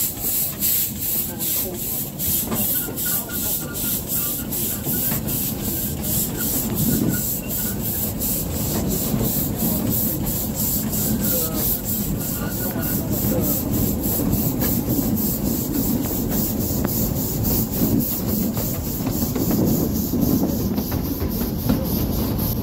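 1916 Decauville steam locomotive No. 1652 chuffing at a steady beat of about two to three exhaust beats a second, heard from a carriage behind it, over the continuous rumble of the coaches running on the narrow-gauge track.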